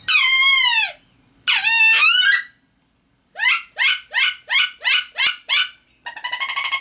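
Duck Commander wood duck call blown by mouth, imitating a wood duck: two long squeals that fall in pitch, then seven short rising chirps about three a second, then a fast buzzy trill near the end.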